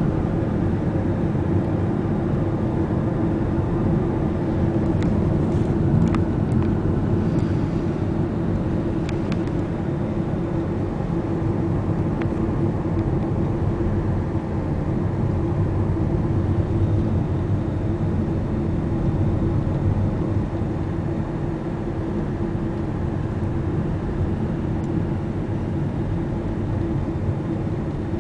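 Car cabin noise while driving: a steady rumble of engine and tyres on the road with a constant low hum, heard from inside the car. A few faint ticks come in the first half.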